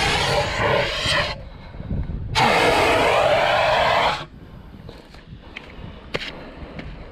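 Hand-held fire extinguisher discharging onto a burning pit bike in two bursts of loud hissing spray, the first lasting about a second and the second about two seconds, with wind rumbling on the microphone.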